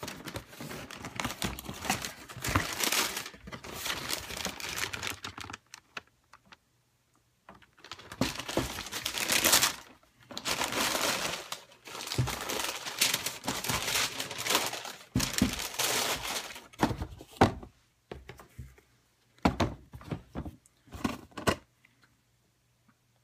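Tissue paper crinkling and rustling as a sneaker box is opened and the shoes unwrapped, in long bursts with short pauses. Near the end come a few light knocks as a shoe is handled and set down on the cardboard box.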